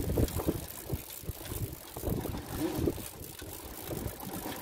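Wind buffeting the microphone and water slapping against the hull of a small boat at sea, in uneven gusts.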